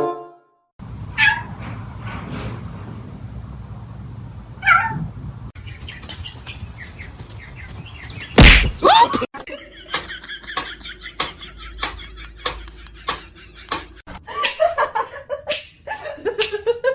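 A cat meowing in short calls, separated by other pet-video sounds; in the second half there is a run of sharp, evenly spaced taps.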